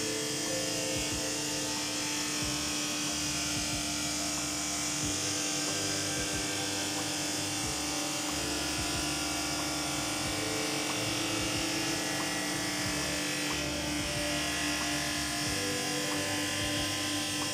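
JIB 21106 drum sander running with a 5 mm plywood oval being fed through under its abrasive drum: a steady motor hum with an even hiss of sanding.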